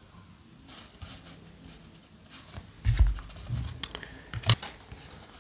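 Yu-Gi-Oh! trading cards being flipped through by hand: light slides and ticks of card on card. A dull thump comes about three seconds in and a sharp snap about a second and a half later.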